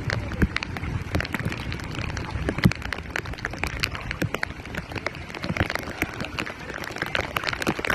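Rain falling, with many sharp, irregular drop hits close by over a low, steady rumble.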